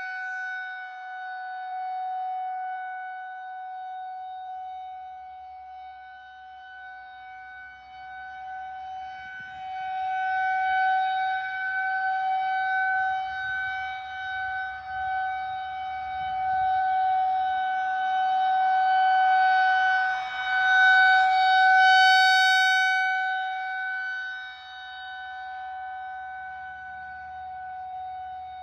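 Federal Signal 2001-130 rotating outdoor warning siren sounding a steady-tone alert signal. The pitch holds level while the loudness swells and fades slowly as the siren head turns.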